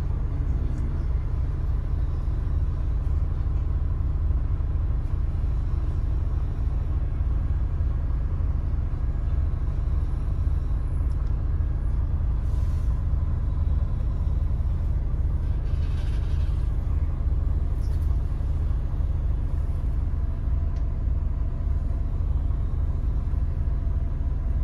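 Double-decker bus engine running with a steady low rumble, heard from the upper deck while the bus waits and creeps forward at traffic lights. A few faint hisses come and go in the middle.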